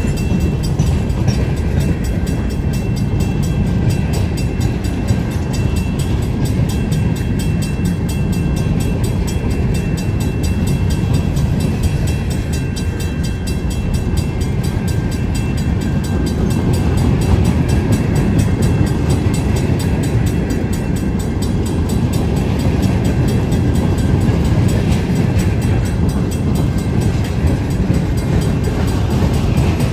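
Wheeling & Lake Erie freight train's open hopper cars rolling past at close range: a steady, loud rumble and rattle of steel wheels on the rails.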